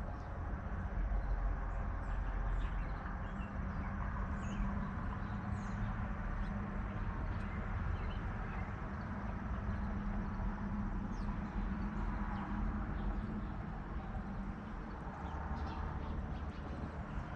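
Scattered faint bird chirps over a steady low rumble.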